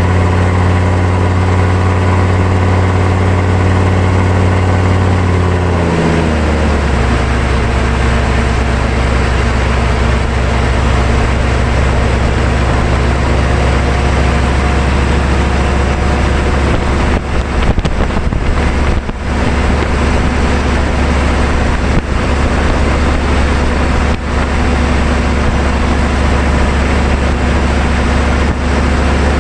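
1999 GMC 3500's 6.5-litre turbo-diesel V8 running steadily under way, heard from beneath the truck with loud road and wind noise; the engine pitch drops about six seconds in, then holds steady.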